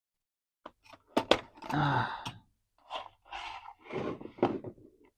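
Hard plastic toy pieces clicking and knocking as they are handled, with a short breathy sigh about two seconds in, followed by a run of brief plastic scrapes and taps.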